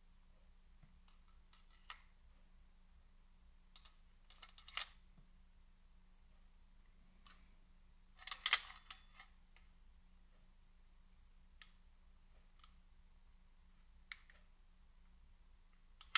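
Metal clicks and light scraping of Mosin-Nagant bolt parts being fitted together by hand, scattered single clicks with a louder cluster of rapid clicks and rattles about eight seconds in.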